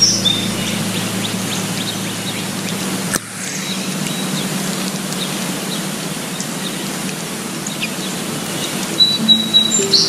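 Steady outdoor ambience hiss with scattered short bird chirps. Background music is heard at the very start and comes back about nine seconds in.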